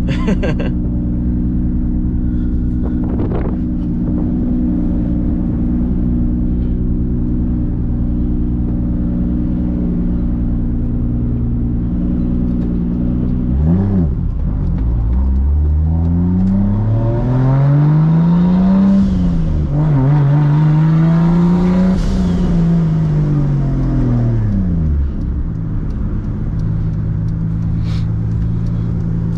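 Straight-piped exhaust of a big-turbo Toyota Supra MKIV's 2JZ straight-six, heard from inside the cabin, which the driver calls pretty loud. It holds a steady low note, then about halfway through it accelerates, with the pitch climbing, dipping at a gear change and climbing again. It then comes off the throttle and falls back to a steady low rumble.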